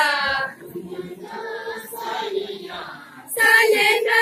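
A group of women singing a Tangsa Sapolo dance song unaccompanied. The singing drops to a softer stretch about half a second in and comes back loud near the end.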